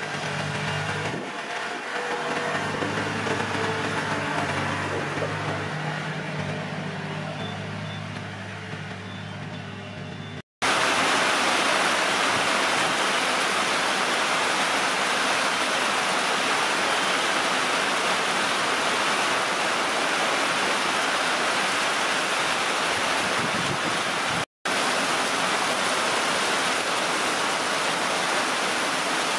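Heavy rain falling steadily, a loud, dense, even hiss that starts abruptly about ten seconds in and drops out for an instant near the end. Before it there is a lighter hiss over a low steady drone.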